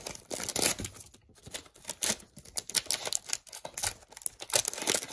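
Foil wrapper of a trading card pack crinkling and tearing as it is pulled open by hand, in irregular crackles with short lulls.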